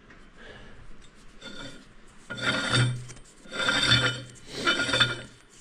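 Steel head of a Galion 125 crane's hydraulic ram being screwed by hand onto the threaded cylinder barrel: metal threads scraping and rasping in three strokes a little under a second apart, starting about two seconds in. The threads are loose enough that the head wobbles a little as it turns.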